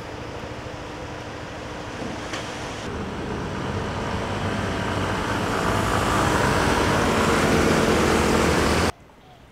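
City street traffic on a wet road: cars and motor scooters passing with engines running and tyres hissing, growing louder as a group of scooters draws near. It cuts off abruptly near the end.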